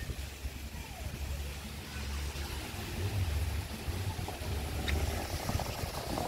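Low wind rumble buffeting the microphone, with a faint click about five seconds in.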